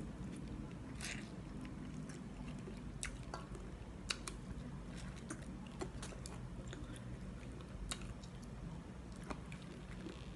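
A person chewing a mouthful of instant noodles, with scattered wet clicks and smacks of the mouth and of fingers being sucked clean.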